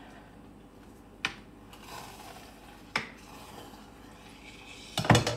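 Metal spoon knocking twice against a cooking pan with faint scraping between, then a spoon dropped and clattering loudly near the end.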